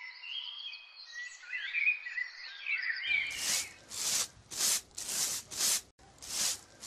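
Birds chirping for about three seconds, then a broom sweeping the pavement in even, hissing strokes, roughly two a second.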